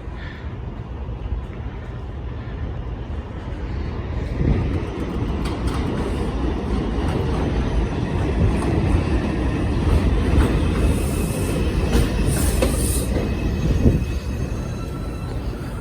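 New York City Subway 2 train pulling into an elevated station: the cars' wheels rumble and clatter on the rails, growing louder about four seconds in, with high wheel squeals partway through and a thin high tone near the end.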